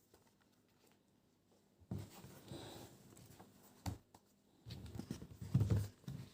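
Rustling and handling of a package or clothing, with a sharp click about four seconds in and louder handling near the end.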